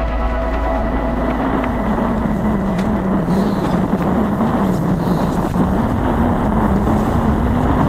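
Strong wind blowing hard against the microphone: a loud, steady rush with a low, wavering howl.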